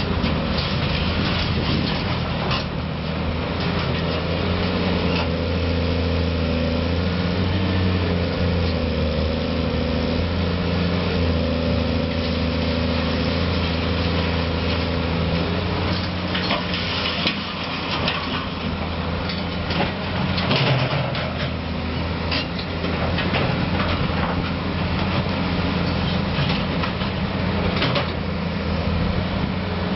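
Caterpillar 330C hydraulic excavator's C9 diesel engine running steadily under working load while it loads a dump truck, its note shifting as the hydraulics work. Broken stone and concrete rubble clatter and knock repeatedly around the middle.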